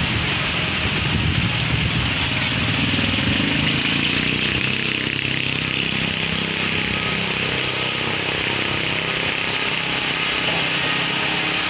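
Diesel locomotive engine running with a steady low rumble as the train approaches slowly.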